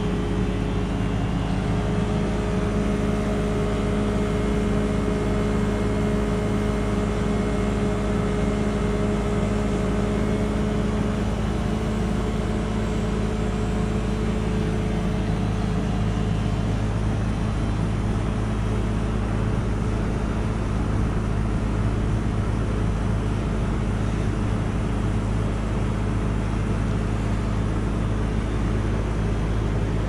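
Bosch inverter heat pump outdoor unit running in its defrost cycle, giving a steady hum with several steady tones. The outdoor fan is stopped, so the running compressor is what is heard.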